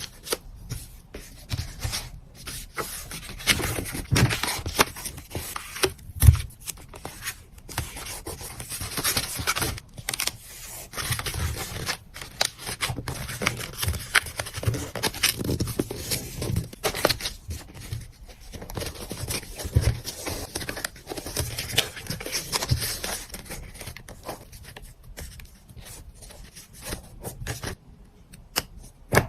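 Packaging being handled while an order is packed: dense crinkling, scraping and tearing of wrapping material, broken by many sharp taps and clicks, the sharpest about six seconds in.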